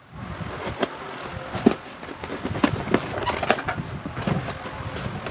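Scissors cutting along the packing tape of a cardboard box: irregular scraping and rustling, with scattered sharp clicks and knocks on the cardboard.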